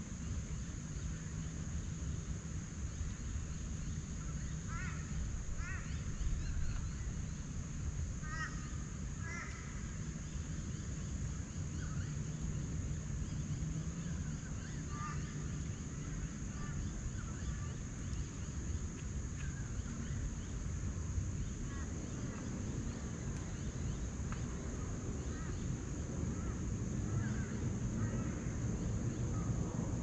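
Forest birds giving scattered short calls, several in quick runs (clearest about eight to ten seconds in), over a constant high-pitched drone and a steady low rumble.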